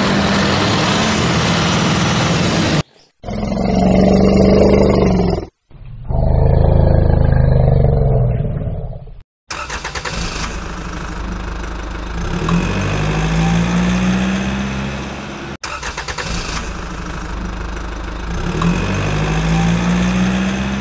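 Vehicle engine sound effects in several abruptly cut segments. An engine runs steadily, then come two louder, muffled stretches, then idling with two rising revs about six seconds apart.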